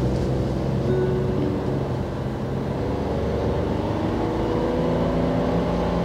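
Cabin sound of a Hyundai Casper's naturally aspirated 1.0-litre three-cylinder engine pulling the car gently up through city speeds, with a steady low drone over road noise.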